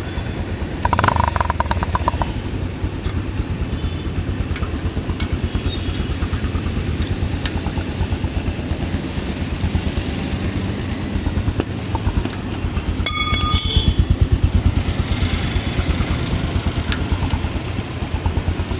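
Bajaj Pulsar 150's single-cylinder engine idling, its exhaust pulsing evenly out of a silencer fitted with a small chrome tip insert meant to deepen the note.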